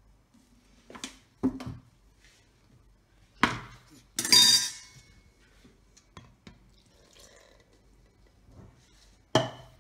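A metal spoon clinking against a stainless steel mixing bowl: several separate clinks, a louder ringing clatter a little past the middle, and a last clink near the end as the spoon is laid in the bowl.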